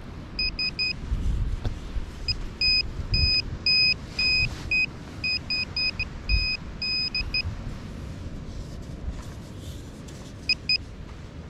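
Handheld metal-detector pinpointer beeping: short high beeps at one steady pitch, some quick and clipped, some held longer, in irregular clusters as it is probed in a hole in the sand, the beeps signalling metal near its tip. They fall mostly in the first seven seconds, with a brief few again near the end, over low rumbling and the scrape of hands digging in sand.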